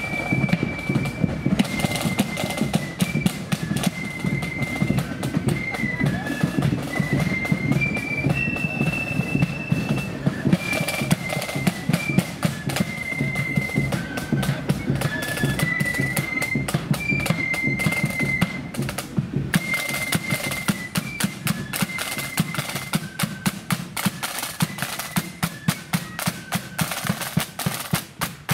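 Blood-and-thunder marching flute band playing: flutes carry a stepping melody over fast, rattling snare drums and a heavy bass drum beat.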